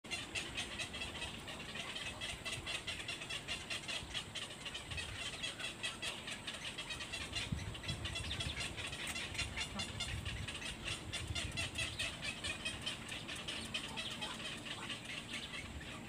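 Black-crowned night heron chicks giving a fast, continuous chatter of short begging calls, many a second, with low rumbles underneath.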